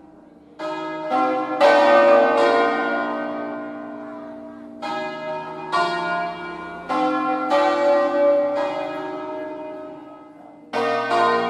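A set of five hand-rung church bells in B-flat, cast in 1859, ringing in full 'distesa' as they swing full circle on their wheels. The bells strike one after another in rounds of four or five strokes. The ringing dies away between rounds: one round early on, one in the middle, and a new one starting near the end.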